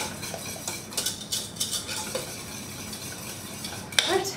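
A wire whisk stirring gravy in a stainless steel saucepan, its wires scraping and clicking against the pan as the seasoning is mixed in. A single sharp knock comes about four seconds in.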